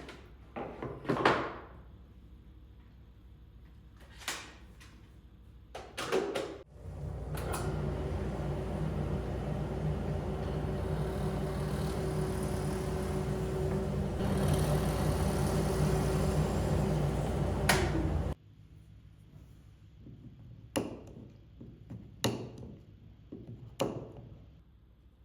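A woodworking power tool's motor runs steadily for about eleven seconds and cuts off suddenly. Sharp wooden knocks and clatter come before and after it.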